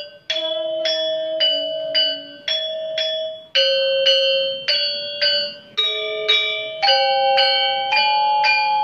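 Balinese gamelan metallophone: its bronze keys struck with a mallet in a steady melody of about two notes a second, each note ringing bell-like until the next strike.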